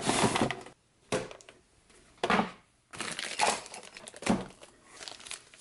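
Cardboard toy packaging and plastic-bagged parts being pulled out and handled: a series of crinkling, rustling bursts with short gaps between them.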